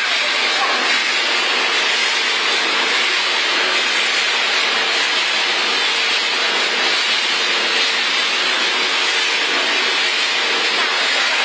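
Pet food pellet making machine running steadily: an even, unbroken rushing noise with a faint low hum underneath.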